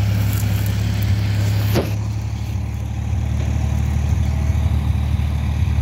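A steady low engine-like drone, with one brief sharp sound just before two seconds in.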